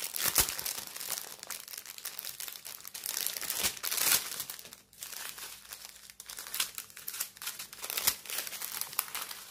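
Thin plastic bags of diamond-painting drills crinkling irregularly as they are handled and unfolded, with a few louder crackles.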